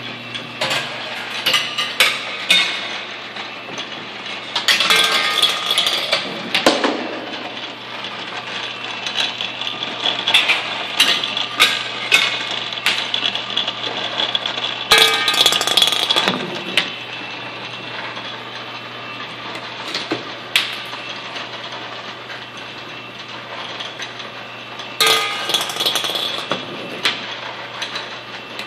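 A gumball-handling kinetic sculpture running on AC motors: a steady low motor hum under repeated bouts of clicking and clattering from its metal mechanisms, with the loudest clatter about five seconds in, around fifteen seconds in, and near twenty-five seconds in.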